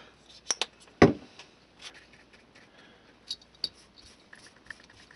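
Small plastic acrylic paint bottles and a paintbrush being handled on a workbench: a few sharp clicks, the loudest knock about a second in, then quieter scattered taps.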